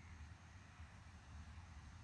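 Near silence: faint outdoor background with a low, uneven rumble and a light hiss.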